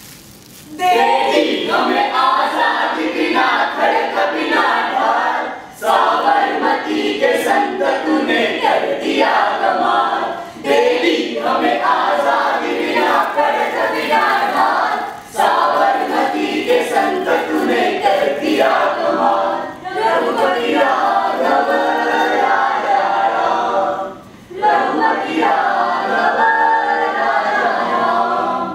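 A group of men and women singing together in chorus, unaccompanied, in phrases about five seconds long with a short break between each.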